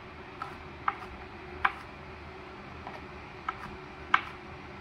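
Kitchen knife chopping peeled garlic cloves on a cutting board: a handful of sharp, irregularly spaced knocks, the loudest about four seconds in.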